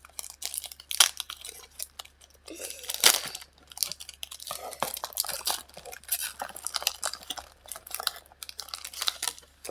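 Foil Pokemon card booster packs crinkling and tearing as they are opened, with the cards being handled: an irregular run of rustles and sharp crackles, loudest about a second in and three seconds in.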